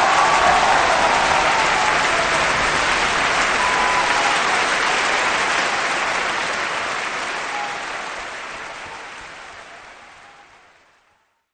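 Crowd applause, a dense steady clapping that fades out over the last five seconds.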